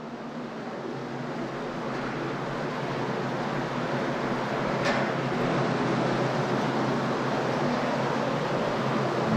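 A rushing, wind-like noise swelling steadily louder from silence, with a low steady hum beneath it and one short sharp click about five seconds in.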